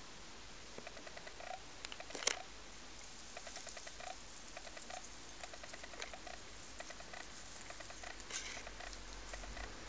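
Two rabbits chewing dry meadow hay: quick runs of fine crunching clicks, several a second, with a louder crackle of hay about two seconds in and again near the end.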